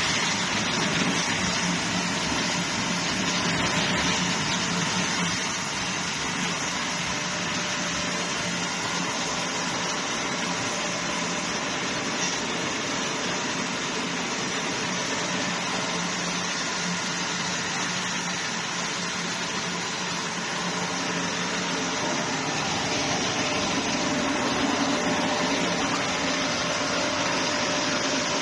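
Veneer sanding machine with vacuum suction feed running: a steady whirring hiss that eases slightly about six seconds in and builds again near the end.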